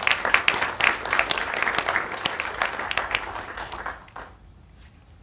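An audience applauding with many hands clapping, dying away about four seconds in.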